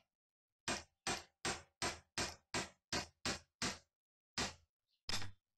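A hand-held sharpener is rubbed across the steel edge of a chisel clamped in a bench vise. About ten quick, short scraping strokes come in a steady rhythm, then two more spaced strokes near the end.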